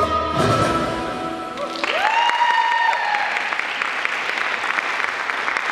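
Belly dance music ends about a second and a half in and audience applause follows, with a single high cheer rising over the clapping just after the music stops.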